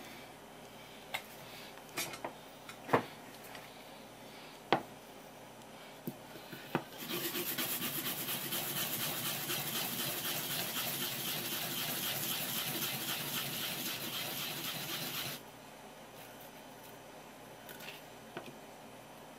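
A few sharp taps in the first several seconds, then a fresh wasabi root rubbed quickly against a sharkskin grater: a steady grating for about eight seconds that stops suddenly.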